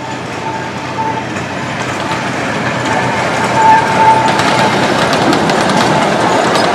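Small-gauge zoo ride train with a steam-style locomotive approaching and passing, its running growing steadily louder. A thin high whine comes and goes in the first half, and wheels click over the rail joints in the second half as the carriages go by.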